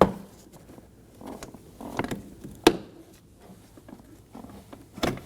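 Plastic door-handle cable clips and cable ends clicking as the latch cables are unhooked from the holders on the back of an interior door handle: three sharp clicks with soft handling rustle between.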